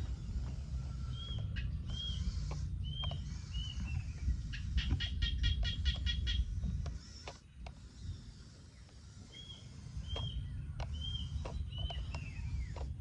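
A bird repeating short arched chirps in two runs, with a quick rattling trill of clicks about halfway through, over a low rumble that drops away for a few seconds and returns.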